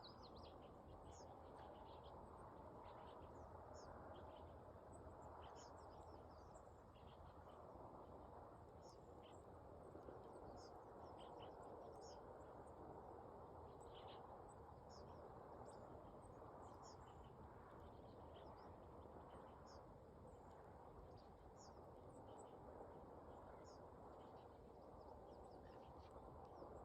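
Faint nature ambience: a steady low rush with many short, high bird chirps scattered throughout.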